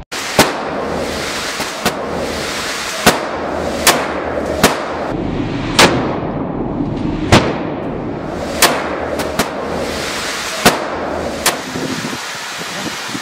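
Desert Eagle pistol fired shot after shot in an indoor range: about a dozen sharp reports roughly a second apart, each with a short echoing tail, over a steady hiss.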